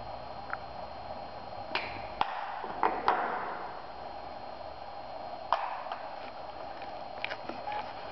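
Scattered sharp plastic clicks and taps of makeup cases and a compact being handled and snapped open, the loudest clicks about two to three seconds in and another near the middle, over a steady room hum.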